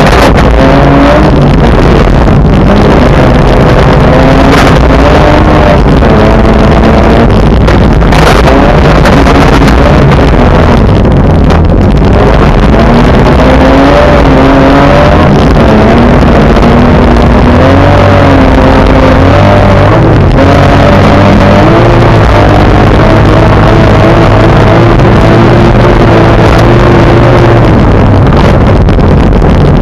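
Car engine driven hard, its pitch climbing and dropping back again and again as it accelerates and changes gear. Under it is a constant loud rushing noise.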